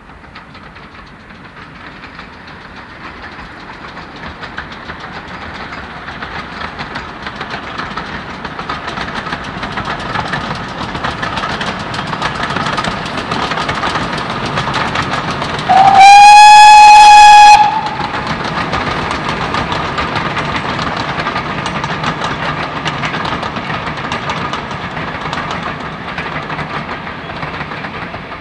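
Steam train of two tank engines drawing nearer, its running noise growing steadily louder. Just past halfway a steam whistle sounds once, a single held note for about a second and a half, the loudest sound. Then the coaches run past and the sound slowly falls away.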